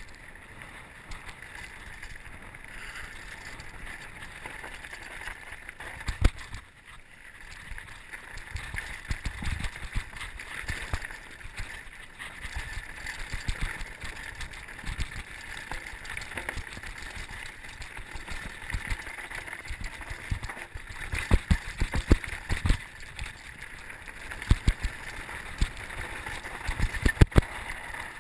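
Mountain bike descending a rocky gravel trail: steady rushing wind and tyre noise, with repeated knocks and rattles from the bike jolting over stones, heaviest in the last third.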